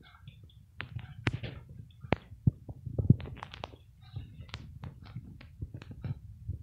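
Cat lapping milk from a plastic plate: quick, irregular clicks of the tongue, several a second, over a low rumble.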